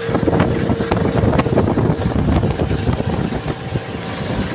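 A motorized outrigger fishing boat's engine runs steadily with a constant hum, while strong wind buffets the microphone with heavy, uneven rumbling.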